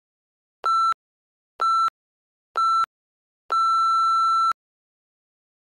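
Workout interval timer counting down: three short beeps about a second apart, then one long beep as the count reaches zero, marking the end of the work interval.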